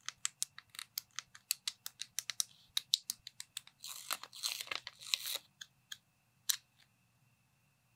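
Plastic building-block pieces clicking and snapping together in quick succession, about five or six clicks a second. About four seconds in, a sticker is peeled off its backing sheet with a rustling tear of about a second and a half. Two more single clicks follow, then it goes quiet.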